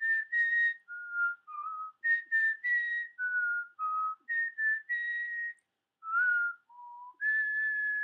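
A person whistling a tune: a quick run of short notes that step up and down in pitch, then one long held note near the end.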